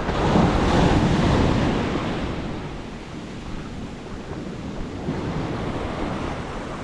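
Surf washing up the beach. A wave surges in over the first two seconds, then slowly draws back.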